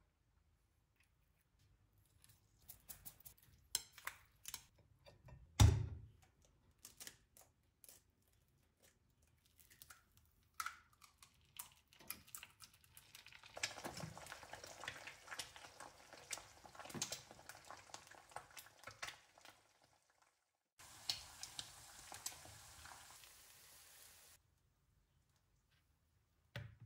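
Breakfast being made by hand: a kitchen knife clicking and scraping as an avocado is cut and scooped, with one loud knock about six seconds in. Around the middle comes a stretch of hiss and crackle as a French press plunger is pushed down through the coffee, followed later by a short steady hiss.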